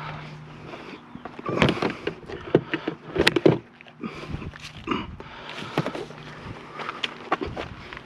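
Irregular knocks, clicks and clatter of metal scrap items being handled and moved, with a faint steady low hum underneath at times.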